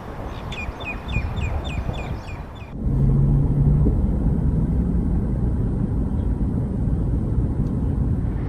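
Steady low outdoor rumble of wind and road traffic. In the first couple of seconds a short, high chirp repeats about eight times in quick succession. Then the sound cuts abruptly to a louder, deeper rumble.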